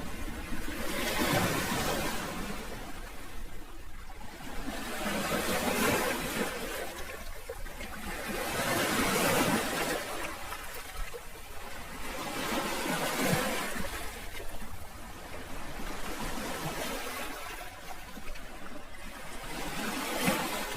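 Sea waves washing onto the shore, the sound of surf swelling and falling away about every four seconds.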